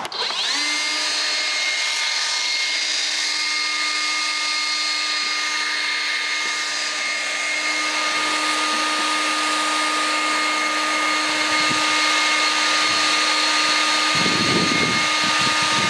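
DeWalt DCBL720P1 20V brushless cordless handheld blower spinning up just after the start, then running steadily at maximum speed. Air rushes out under a steady high-pitched whine from the motor and fan.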